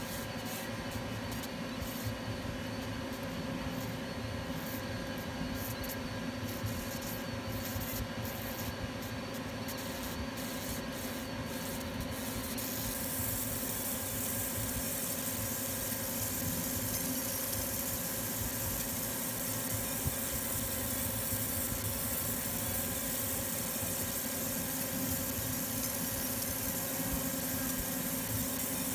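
60-watt fiber laser marker running with a steady machine hum, while the beam ablates the painted sledgehammer head with a high hiss. The hiss comes in short stretches at first and turns continuous and slightly louder about 13 seconds in.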